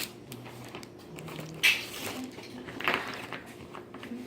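Objects being rummaged through and handled in a bag of salvaged goods: scattered light rustles and clatters, with two sharper knocks about a second and a half and three seconds in.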